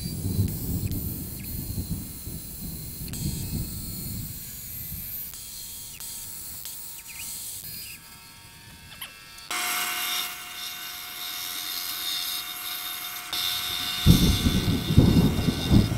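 A bandsaw cuts a poplar lure blank with a rough low rasp. About ten seconds in, a disc sander starts with a steady whine. Near the end the wood is pressed to the sanding disc, adding a loud rough sanding noise.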